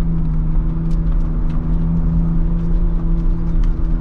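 The Ford Bronco Raptor's 3.0-litre twin-turbo V6 drones at steady revs, heard from inside the cabin over the low rumble of tyres on a dirt trail. Faint ticks are scattered throughout.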